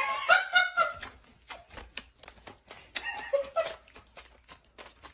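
A dog with a hard chew held in its mouth: rapid irregular clicks as its teeth work on the chew, with two short vocal sounds, one at the start and one about three seconds in.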